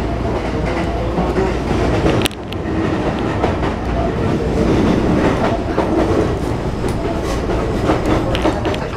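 Running noise inside a Sotetsu 20000 series electric train car as it nears its stop: a steady rumble of wheels on rail, with a few sharp clicks of the wheels over rail joints, once about two seconds in and again near the end.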